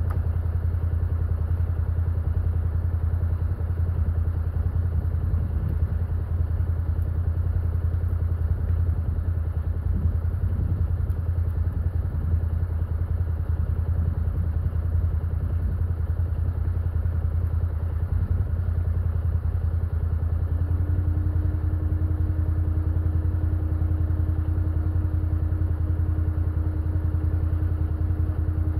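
Can-Am Defender side-by-side engine idling steadily while stopped. About two-thirds of the way through, a steady higher hum joins the engine sound.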